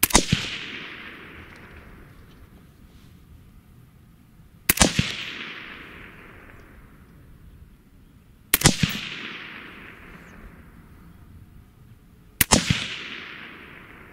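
Four shots from a suppressed AR-15 with a 223 Wylde barrel and a Liberty Infiniti X suppressor, fired about four seconds apart. Each is a sharp double crack followed by an echo that fades over a second or so.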